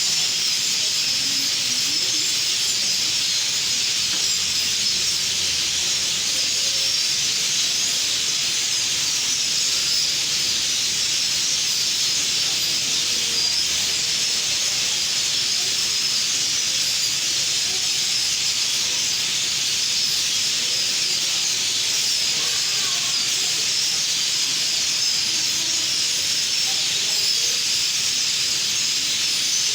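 A huge flock of birds chattering all at once, so many high calls overlapping that they merge into a steady, hiss-like roar of chirping.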